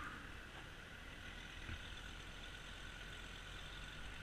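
Faint, steady low hum of an engine idling.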